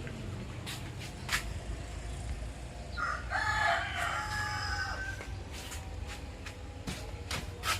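A rooster crows once, a call of about two seconds starting about three seconds in, over a steady low hum, with a few sharp clicks before and after it.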